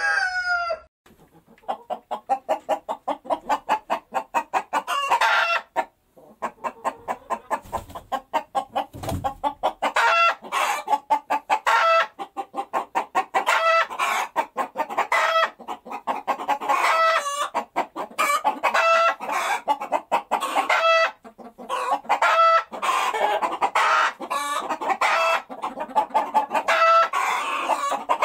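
Domestic chickens clucking in fast runs of short notes, broken every second or two by a louder drawn-out squawk, the 'buk-buk-buk-ba-gawk' cackle of hens. The falling tail of a rooster's crow fades in the first second, and the clucking breaks off briefly about six seconds in.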